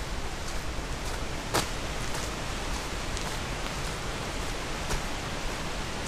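Wind blowing: a steady rushing noise with a low rumble of wind on the microphone, and a few faint ticks, the clearest about one and a half seconds in.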